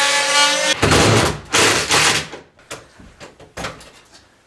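An oscillating multi-tool's steady whine cuts off under a second in. Then a loud stretch of scraping and rattling follows, and after it scattered light clicks and knocks as a metal sink mounting rail is handled and set across a wooden cabinet frame.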